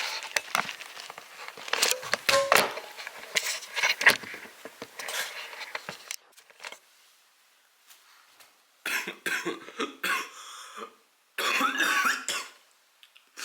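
Clicks and rustling from handling kitchen things, then, after a short quiet spell, a person coughing hard twice near the end.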